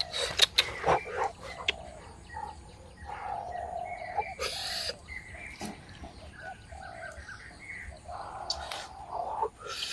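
A run of short animal calls, with sharp clicks and knocks in the first two seconds.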